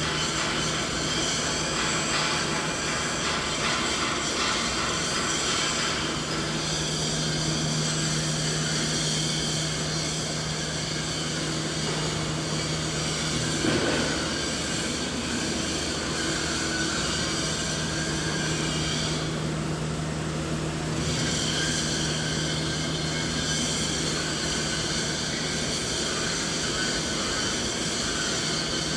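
Steady machinery noise: a constant low hum under an even, rushing mechanical din, with a brief swell about halfway through and a short dip in the high hiss about two-thirds through.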